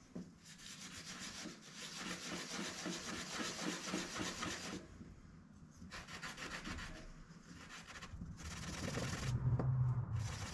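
A small part being scoured by hand with a green abrasive pad: rapid back-and-forth scrubbing strokes in spells, pausing about five seconds in and then resuming, cleaning rust and grime off the part.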